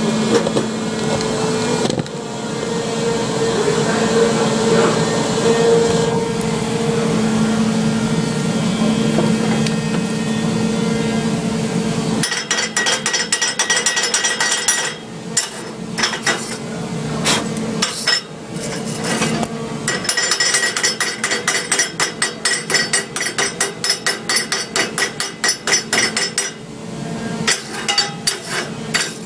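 Arc welder running with a steady buzzing hum and crackle, stopping about twelve seconds in. Then rapid metal-on-metal tapping, several strikes a second in bursts with short pauses, typical of a chipping hammer knocking slag off a fresh stick weld.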